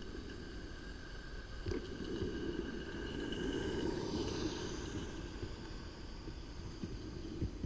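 Roundhouse 'Billy' live-steam garden-railway locomotive and its wagons running past close by: a steady rumble of small wheels on the track with a couple of sharp clicks, swelling about two to four seconds in as the train passes and easing off as it moves away.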